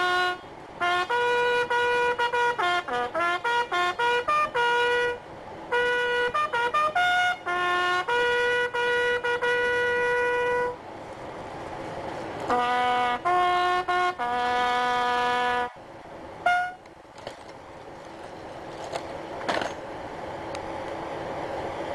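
A military bugle call: one bugle playing a run of clear notes, quick short ones and longer held ones, in phrases with short breaks, stopping about three-quarters of the way through. After it comes a hiss that slowly grows louder.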